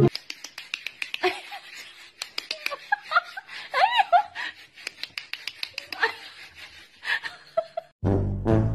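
People giggling and laughing softly, with many sharp clicks throughout; a louder sound cuts in near the end.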